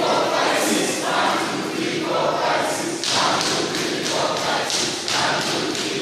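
A choir of voices singing in short repeated phrases over a thudding beat.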